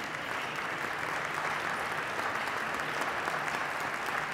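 Audience applauding steadily, a dense patter of many hands clapping, welcoming a speaker to the lectern.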